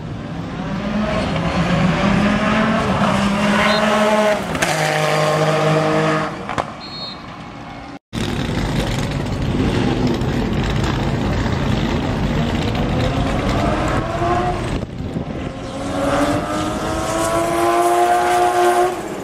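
Race car engines at speed: a first car's engine climbs in pitch, then drops sharply as it passes about four and a half seconds in, and fades away. After a brief break, a Martini-liveried Porsche 935's turbocharged flat-six climbs steadily in pitch as it accelerates toward and past the listener.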